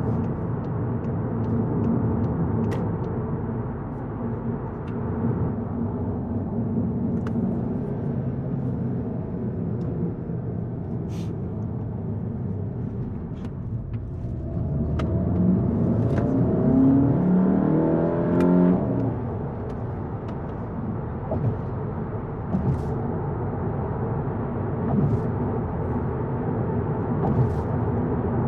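Volkswagen Golf GTI mk7.5's turbocharged 2.0-litre four-cylinder engine and road noise, a steady low drone while driving. About halfway through, the engine note climbs for about four seconds as the car accelerates, then drops back when the throttle lifts.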